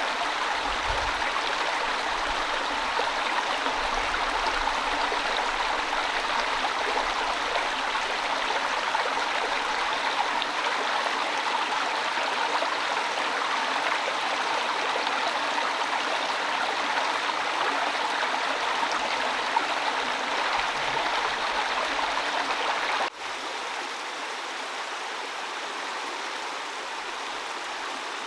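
Steady rain falling, a dense even hiss. About five seconds before the end it drops suddenly to a somewhat quieter level.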